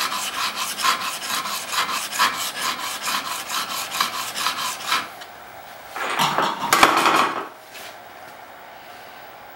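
A steel blade rubbed in rapid back-and-forth strokes on a wet diamond sharpening stone, honing out a hollow spot that a belt sander left in it. The strokes stop about five seconds in. A louder, lower scrape lasting about a second and a half follows.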